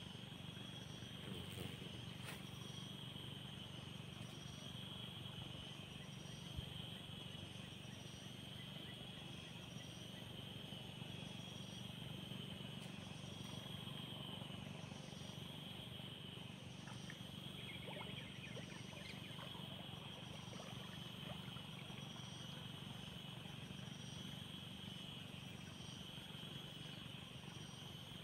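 Steady chorus of insects with a higher call pulsing about once a second, over a low steady hum. A single sharp tap about six and a half seconds in.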